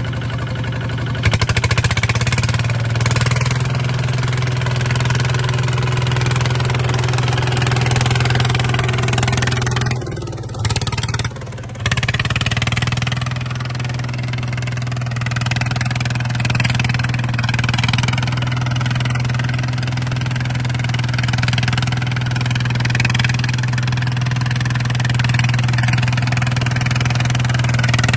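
Small bulldozer's engine running steadily at a constant speed, its sound dipping briefly twice around the middle.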